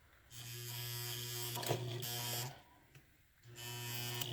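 Singer 237 sewing machine running as it stitches through vinyl: a steady motor hum that stops a little over halfway through and starts again about a second later.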